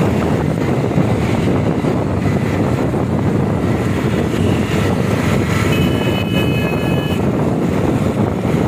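Wind rushing over the microphone and the running of a motorcycle's engine and tyres, heard from a motorcycle riding along in traffic. A steady high tone sounds for about a second and a half past the middle.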